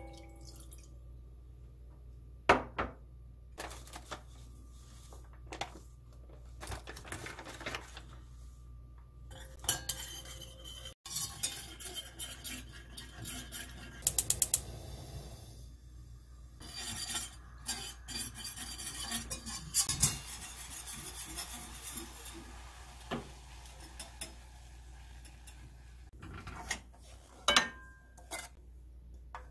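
Wire whisk stirring and clinking against a stainless steel pot as rice flour is whisked into water, with scattered sharp knocks of utensils on the pot and a quick run of clicks midway.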